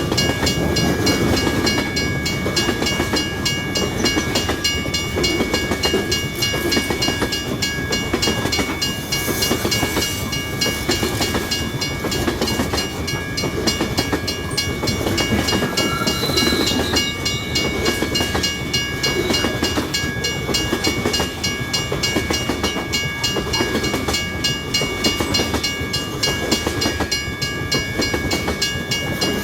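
Long freight train rolling past at steady speed, its wagons rumbling and clacking over the rail joints, with a few thin steady high-pitched tones held above the rumble.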